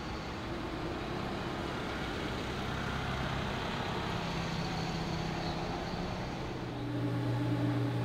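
Steady city street ambience: traffic noise with the low hum of passing vehicle engines.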